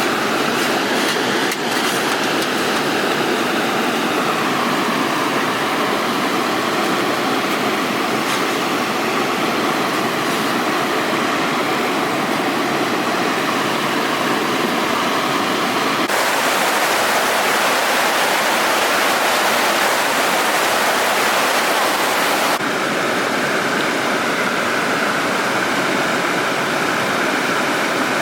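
Rushing gorge river water, a steady loud roar that shifts abruptly in tone twice, brighter from a little past halfway and softer again later on.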